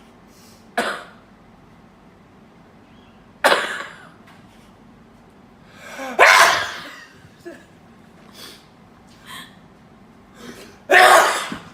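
A person in a sneezing fit, sneezing four times, one sharp sneeze every few seconds, with a short drawn-in breath before the third, and fainter breaths between the sneezes.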